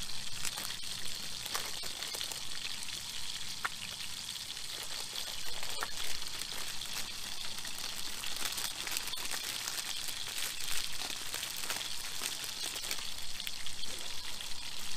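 Bacon sizzling in a frying pan: a steady frying hiss with scattered crackles and pops.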